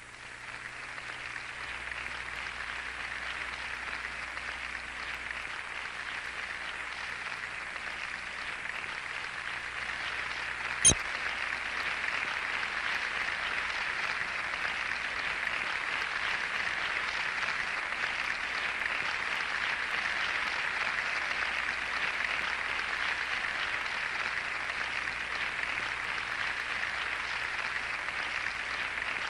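Crowd applauding steadily, with a single loud click about eleven seconds in.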